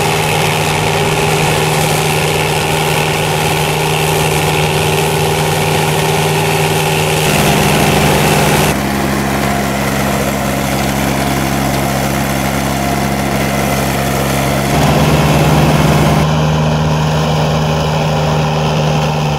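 The engine of a Berti E-Trail remote-controlled tracked flail mulcher running steadily at a constant pitch while mowing. The engine note shifts abruptly several times, about a third of the way in, near the middle and again near the end, as one recording gives way to another.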